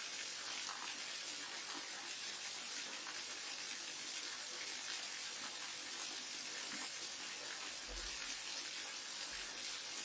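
Waterfall: a steady, even rush of falling water, a constant hiss with no breaks.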